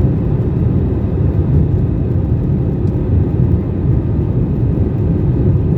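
Steady low rumble of an airliner's engines and airflow, even and unchanging.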